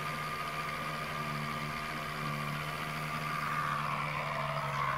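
A small model airplane engine idling steadily, with a slight waver in pitch near the end.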